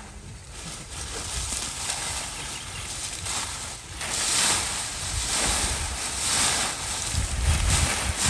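Dry corn stalks and leaves rustling and crackling as they are pulled and gathered by hand, louder from about halfway through. A low rumble underneath grows stronger near the end.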